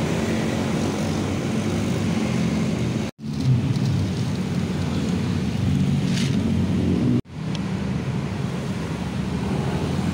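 Steady low rumble of nearby road traffic, broken twice by brief silent gaps.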